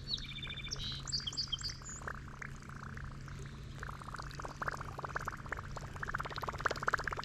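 A bird chirps a few short notes in the first two seconds. Then a fishing reel clicks rapidly and irregularly while a big fish is being played, the clicking growing denser toward the end, over a steady low hum.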